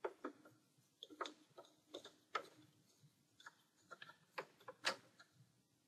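A hand screwdriver driving in the screws that hold a new lamp module in a projector. Faint, irregular light clicks, about two or three a second.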